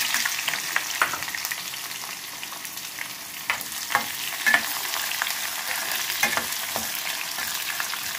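Sliced onions sizzling in hot oil with cumin and mustard seeds in a metal kadhai: the sizzle starts suddenly as the onions drop in and keeps up as a steady hiss. A metal spoon stirring them clinks and scrapes against the pan several times.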